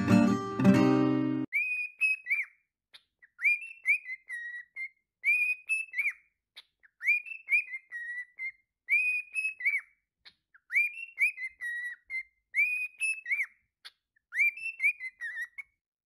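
Acoustic guitar music cuts off about a second and a half in; then a cockatiel whistles the same short tune eight times, about once every two seconds, each phrase a run of rising and falling notes with silence between.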